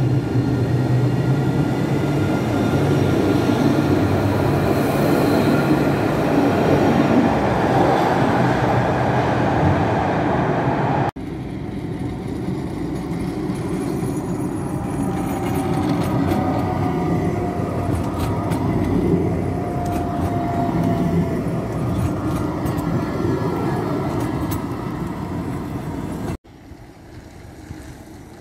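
Trams running on their rails: a steady rumble of wheels and running gear with a motor whine over it, and a slowly falling whine in the middle section. The sound changes abruptly about eleven seconds in and again near the end, where several recordings are cut together.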